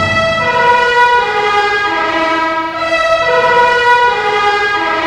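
Brass band playing long held chords, the chord changing every second or so, on a 1945 film soundtrack.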